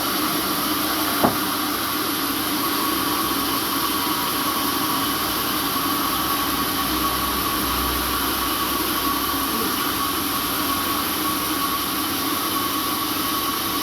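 Sawmill machinery running steadily: a hiss with a steady whine and a lower hum. A single sharp click comes about a second in.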